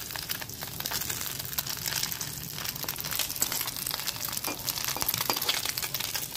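Hot oil sizzling and crackling in a steel kadai as small fried mola fish are lifted out with a spatula: a steady hiss dotted with many small pops.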